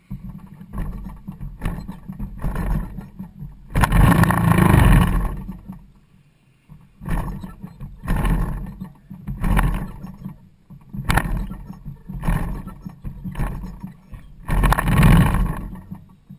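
Wind gusting over the microphone of a camera mounted on a parked light aircraft: irregular loud rushes of buffeting, the strongest about four seconds in and near the end.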